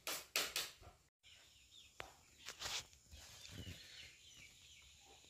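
A few short scrapes of a steel spoon in a steel bowl of masala-coated chicken in the first second. After that come faint bird chirps and hen clucking in the background.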